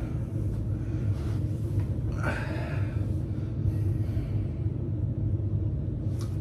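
Steady low hum of room noise, with a short breathy sound about two seconds in and a faint click near the end.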